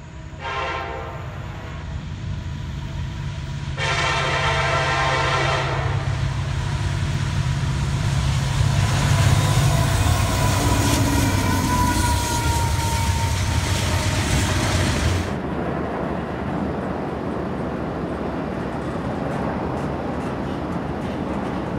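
Diesel freight locomotives sounding their air horn, a short blast and then a longer one about three seconds later, as the train runs past with a loud engine rumble. About fifteen seconds in the engine sound drops away suddenly, leaving the steady rolling noise of the freight cars.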